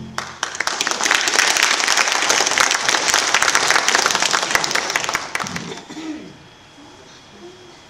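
Audience applauding: a dense patter of many hands clapping that starts just as the music stops and fades away about six seconds in.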